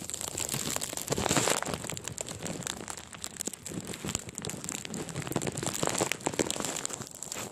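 Blizzard wind gusting against the microphone, with wind-driven snow pelting the device and plastic crinkling. The wind swells about a second in and again around six seconds.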